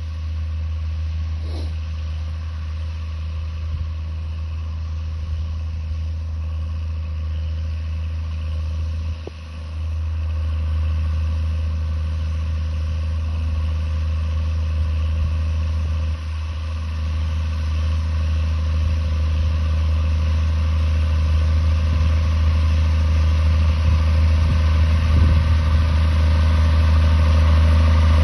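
Schlüter E7800TV tractor's turbocharged 7.1-litre six-cylinder engine running steadily under ploughing load. The level dips briefly about nine and again about sixteen seconds in, then grows slowly louder.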